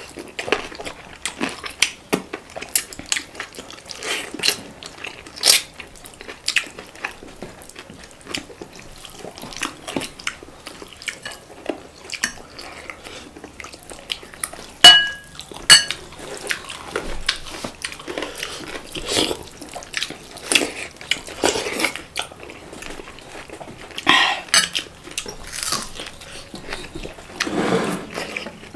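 Plates and cutlery clinking and knocking during a meal: many small clicks, and two louder ringing clinks about halfway through.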